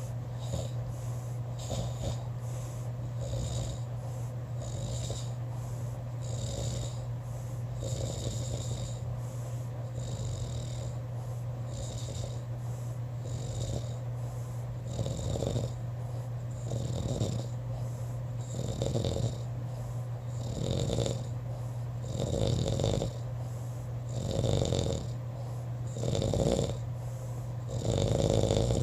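A person snoring in sleep, one snore about every one and a half to two seconds, growing louder in the second half, over a steady low hum.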